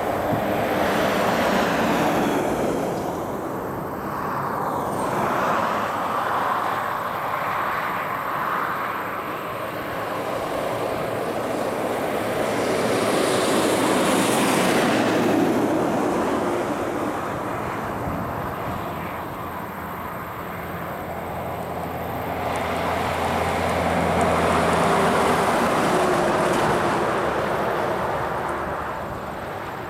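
Heavy trucks driving past on a highway, engine and tyre noise swelling and fading three times as each goes by. The loudest pass, about halfway through, is a Scania logging truck towing a trailer loaded with logs.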